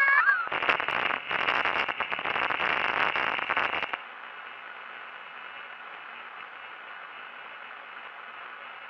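Crackling radio-like static that cuts off about four seconds in, leaving a steady low hiss with a faint hum underneath.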